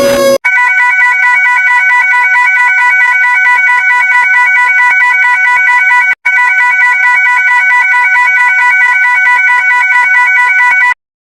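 Electronic emergency alert alarm tone, a single steady pitch pulsing rapidly, with a very short break about six seconds in and a sudden stop near the end.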